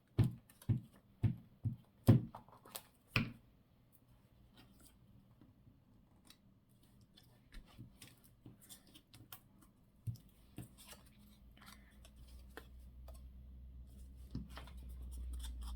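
Scissors cutting paper: a quick run of about seven sharp snips, roughly two a second, in the first three seconds, then fainter scattered ticks.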